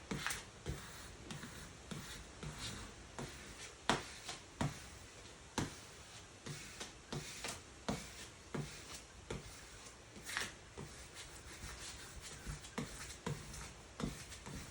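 Squeegee rubbing and scraping over wet vinyl decal film in repeated short, irregular strokes, pressing it down and pushing application fluid out from under it.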